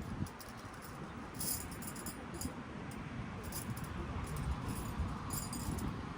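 Light metallic clinking and jangling at irregular intervals, over a low rumble of wind-like noise.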